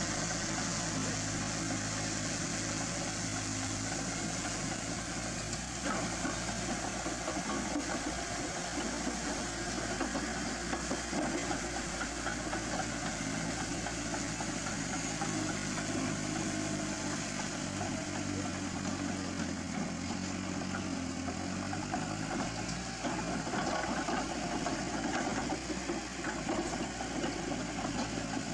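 Heavy machine's diesel engine idling steadily, with a few short metallic knocks.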